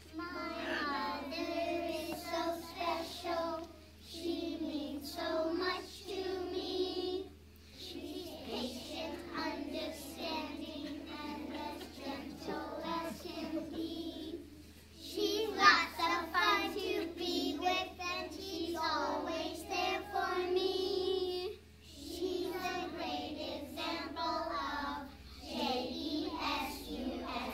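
A group of preschool children singing a song together, the sung phrases broken by brief pauses every few seconds.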